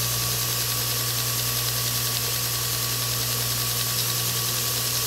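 2 hp single-phase induction motor of a Mean Green S1 knife-making belt grinder running with the abrasive belt spinning: a steady hum under an even hiss from the belt, with no change in speed.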